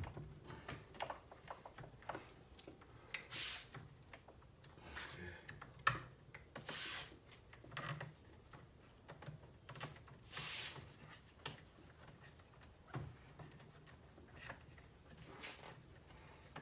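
Faint clicks, taps and short scrapes of parts being handled and worked together, as the quick-release roll cage adapter is slid into place on the RC truck, with one sharper click about six seconds in.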